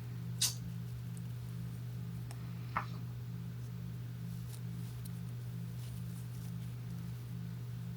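A steady low hum runs throughout, with two short, sharp clicks: one about half a second in and another just before three seconds in.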